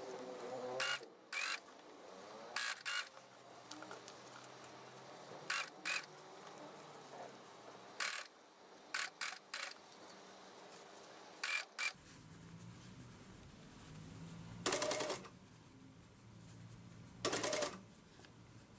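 Industrial lockstitch sewing machine stitching in short spurts of a few stitches at a time, with two longer runs near the end. A low hum comes in about two-thirds of the way through.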